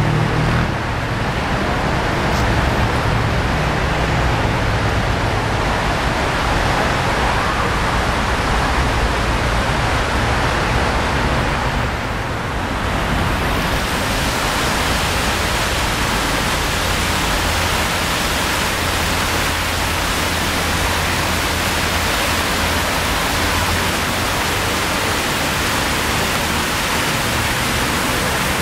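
Water pouring steadily down a tiered stone cascade fountain, an even rushing splash that turns brighter and fuller about halfway through.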